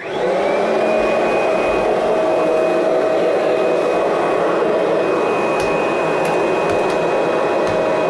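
Kirby Generation 3 upright vacuum cleaner switched on: the motor whines up to speed within about half a second, then runs steadily with a high whine over the rush of air as it is pushed across carpet. A few faint ticks come through in the second half.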